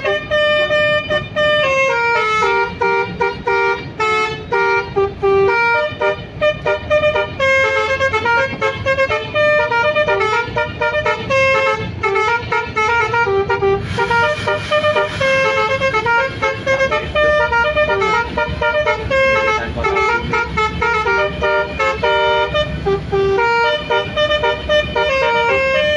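Bus basuri telolet air horn playing a quick melody of stepped notes, each a loud steady horn tone. A low rumble joins underneath in the second half.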